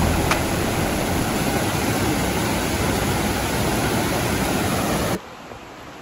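Stream water rushing over rocky cascades below a small waterfall, a steady even rush that cuts off about five seconds in, leaving a much quieter background.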